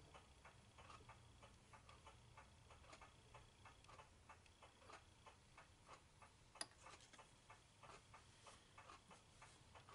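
Faint, even ticking, about five ticks a second, with one sharper click about two-thirds of the way in.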